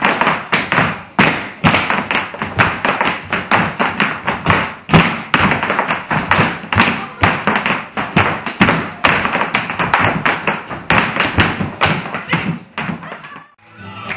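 A group of dancers stamping and tapping their feet on a wooden floor: many quick, uneven footfalls, several a second, which stop shortly before the end.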